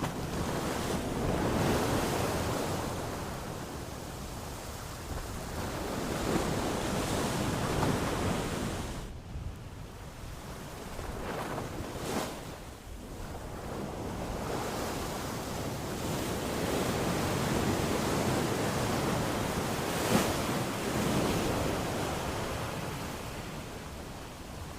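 Ocean surf: waves breaking and washing in, the rush swelling and ebbing in slow surges, with a brief lull about nine seconds in.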